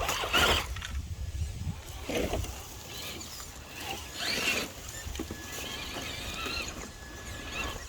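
Ducks quacking: a few short, separate calls about two seconds apart.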